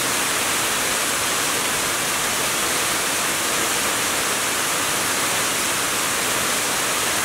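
Shallow river water rushing steadily over rocks, a continuous even roar of white water.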